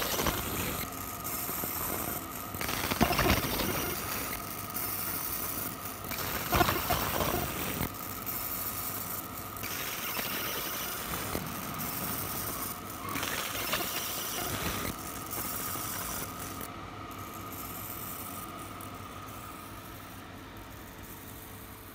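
Laser engraving machine running as it marks metal pen caps: a steady machine hum under a hiss that changes and breaks off every second or two, fading over the last few seconds.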